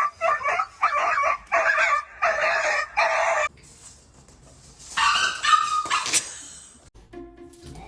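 A dog barking in a quick run of short barks, about two a second, stopping about three and a half seconds in, then a second short burst of barking about five seconds in.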